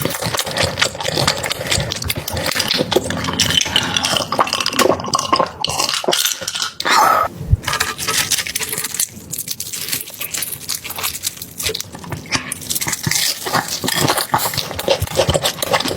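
Close-miked eating: continuous wet chewing and slurping of food.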